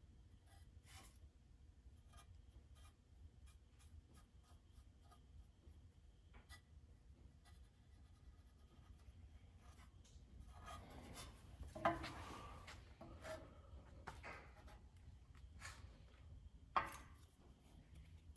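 Faint handling noises of light work on parts: scattered small clicks and some rubbing, with two sharper taps, about twelve and seventeen seconds in.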